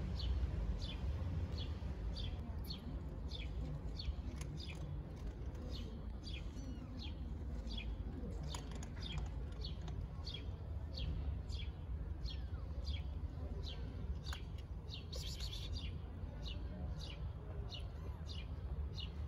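A small bird chirping over and over, short high chirps coming about one and a half times a second, over a steady low background rumble.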